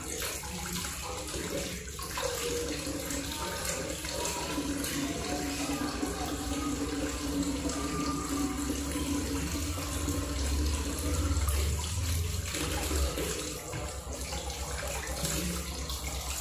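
Kitchen tap running steadily, water splashing over hands and raw fish pieces being rinsed into a stainless-steel sink.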